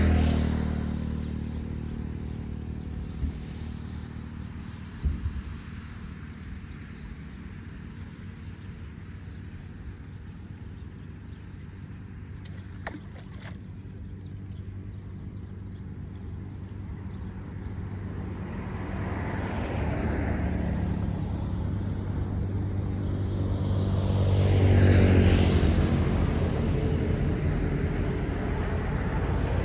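Motor vehicles passing on a road: a low engine hum that swells and fades, loudest about twenty and twenty-five seconds in. A couple of sharp clicks about three and five seconds in.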